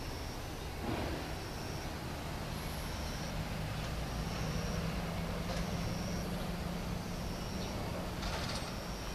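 Outdoor background noise with a steady low vehicle engine hum that grows stronger about four seconds in, and short high chirps about once a second.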